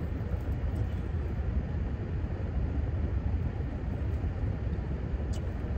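Steady low rumble of a car heard from inside its cabin.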